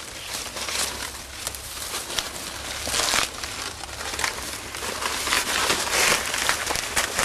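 Dry corn stalks and leaves rustling and crackling, with clusters of sharp snaps, as corn is picked by hand among the stalks.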